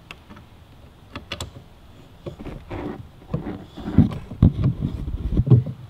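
Hand tool tightening a motorcycle exhaust clamp: light metal clicks at first, then a quicker run of louder clicks and knocks in short strokes from about three seconds in.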